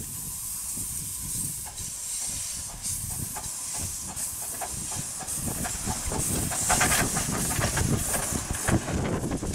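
Small narrow-gauge steam locomotive approaching at low speed, steam hissing from around its cylinders along with chuffing and clicking, getting louder as it draws near.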